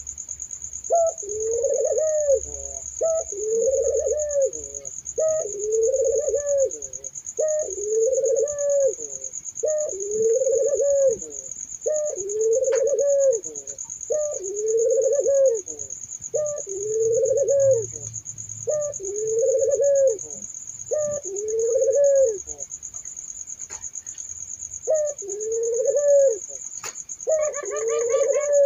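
Barbary doves (burung puter) cooing: a long run of repeated rising-and-falling coos, about one every second and a half, pausing briefly before starting again near the end. A steady high-pitched whine runs underneath the calls.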